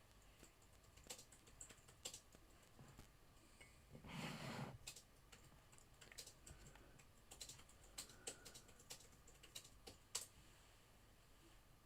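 Faint, irregular keystrokes on a computer keyboard as a word is typed in, with one brief louder noise about four seconds in.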